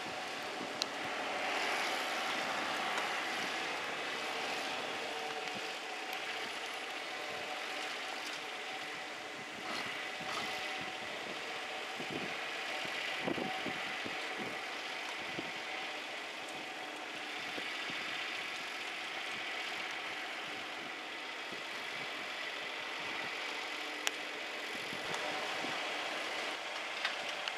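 John Deere 4020 tractor's six-cylinder engine idling steadily, with a few short clicks.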